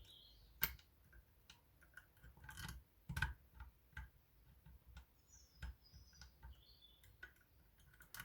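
Faint, irregular metal clicks of lever-lock picks working inside a Union 3G110 five-lever lock.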